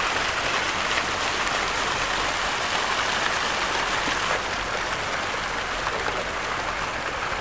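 Row of small fountain jets splashing steadily into a shallow water channel, easing a little about four seconds in.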